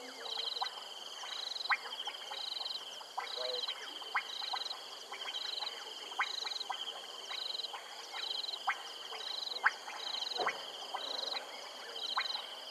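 Frogs calling at a wetland pan: a steady chorus with a pulsed, trilling call repeating about twice a second, over irregular sharp clicking calls from other frogs. A single lower call comes near the end.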